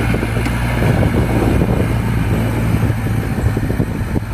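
Bulldozer engine running with a steady low drone and dense clatter.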